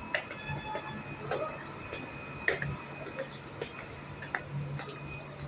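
A low electric fan motor hum that sets in about half a second in and holds steady, with scattered irregular clicks and knocks over it.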